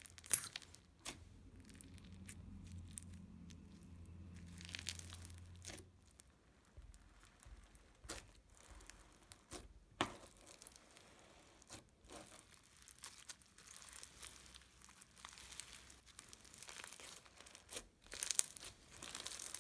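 Crunchy Bingsu bead slime being squished and stretched in the hands, giving off irregular, faint crackles and small pops.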